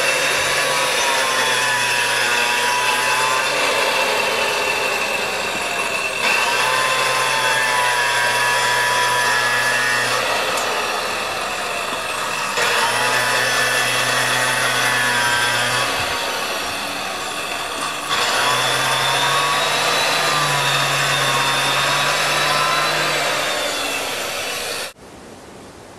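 Small electric saw with a concrete-cutting blade grinding through a concrete patio slab, running continuously with a whine that wavers as the load changes. The sound cuts off abruptly about a second before the end.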